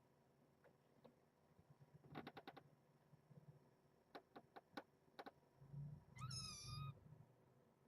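A kitten's single short, high meow about six seconds in, preceded by a few faint clicks.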